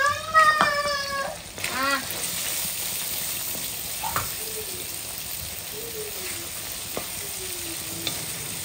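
Chicken, egg and vegetables sizzling steadily as they stir-fry in a wok, with a spatula clicking against the pan now and then. A brief high voice sounds at the start.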